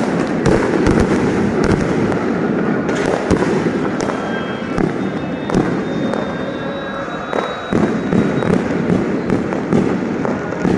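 A fireworks display: many rockets and shells bursting at once, a continuous crackling with sharp bangs throughout and no let-up.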